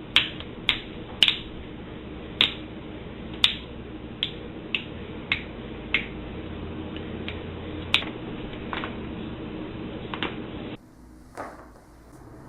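A run of sharp cracking clicks from a chiropractic adjustment, about fifteen in ten seconds and irregularly spaced, over a steady low hum. Both stop abruptly near the end.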